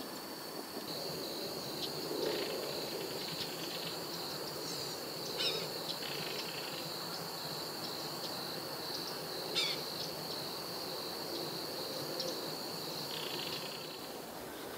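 A steady, high-pitched insect trill runs on, with two short, sharp bird calls that drop quickly in pitch, about five and ten seconds in.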